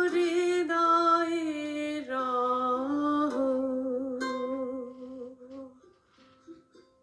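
A woman singing the drawn-out closing notes of a Bengali song, holding long wavering notes that step down in pitch and fade out about six seconds in.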